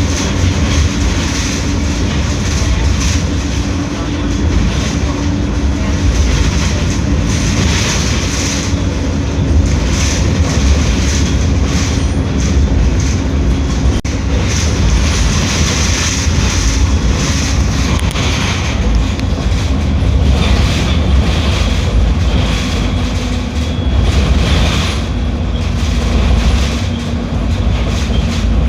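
Mercedes-Benz OF 1721L BlueTec 6 bus engine running steadily with a deep rumble and rattle, its humming note dropping slightly about two-thirds of the way through.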